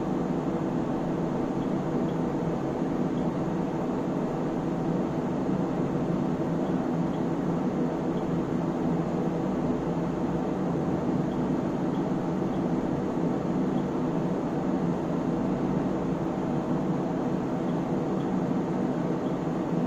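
Cooling fans of an Elgar SW3500A AC power source running steadily: an even whir with a low hum.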